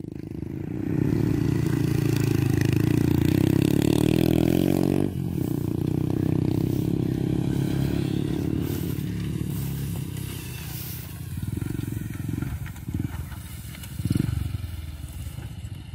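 Small motorcycle engine running under load as the bike hauls a rack of round straw bales over rough rice stubble. The engine note changes abruptly about five seconds in and carries on quieter, with a few louder swells near the end.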